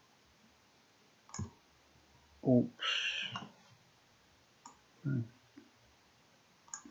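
A few faint computer mouse clicks, with short vocal blips including a quick 'ups' and a brief hiss about three seconds in.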